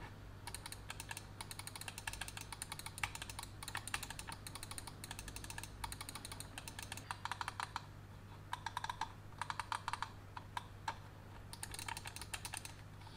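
Microsoft IntelliMouse Optical's buttons clicked rapidly in runs of quick clicks, the restored switches being tested.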